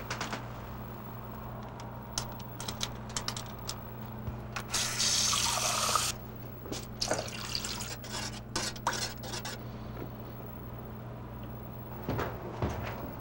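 Kitchen sounds: pots and dishes clattering, and a tap running for about a second and a half around five seconds in. A steady low hum lies under it all.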